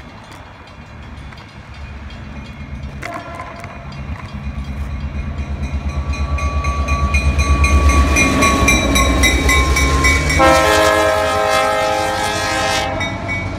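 Diesel locomotive approaching, its engine and wheels making a fast pulsing rumble that grows steadily louder. Near the end its horn sounds a long, loud chord that cuts off abruptly.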